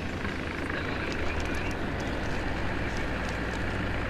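Engine idling steadily with a low rumble, with a few faint ticks about a second and a half in.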